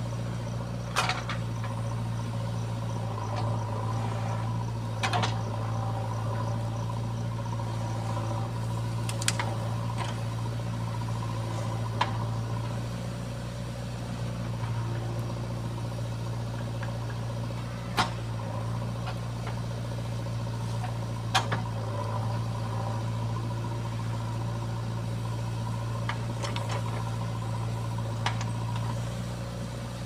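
JCB 3DX backhoe loader's diesel engine running steadily under load while the backhoe digs and loads sand. Sharp metallic clanks come every few seconds, about nine in all.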